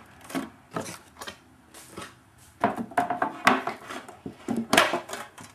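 Handling noise from a hockey card box on a wooden tabletop: a few light clicks, then louder clusters of taps and scrapes around the middle and again near the end.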